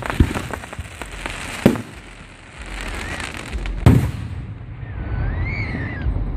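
Aerial fireworks bursting overhead at close range: three sharp bangs, the loudest about four seconds in, with crackling between them.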